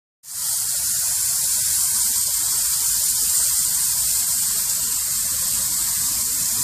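Water under mains pressure spraying in a fine jet from a burst supply pipe behind an outdoor hose faucet: a steady, high hiss that starts suddenly a moment in.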